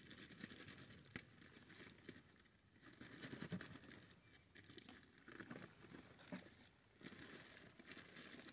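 Near silence with faint rustling and soft low bumps, and a small click about a second in.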